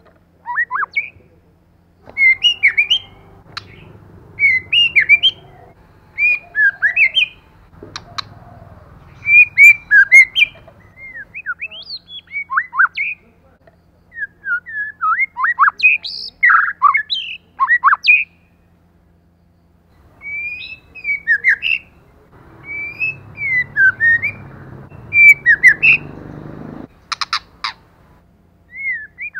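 White-rumped shama singing: short phrases of varied, sliding whistled notes with pauses between them, and a quick run of sharp notes near the end.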